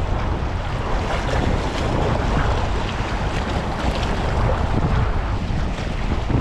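Steady wind buffeting the microphone over the wash of choppy water.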